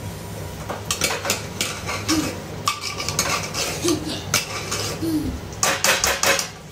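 A metal spoon stirring and scraping in a steel cooking pot, with repeated clinks against the pot, clustering into a quick run of clinks near the end.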